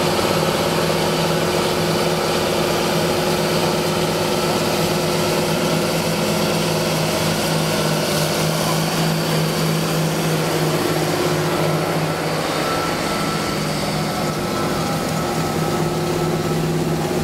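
Large John Deere tractor's diesel engine running steadily under load as it pulls a multi-furrow reversible plough.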